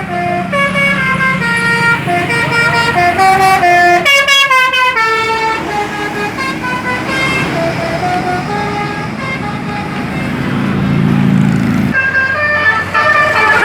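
Bus 'telolet basuri' musical air horn playing a tune of short stepped notes, with a quick rising run of notes about four seconds in. A bus's engine runs underneath and swells louder near the end.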